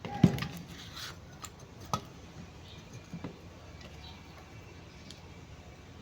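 A few sharp metallic knocks and clinks from an alternator's parts and tools being handled during reassembly. The loudest is about a quarter-second in, with smaller clinks around two seconds and three seconds in.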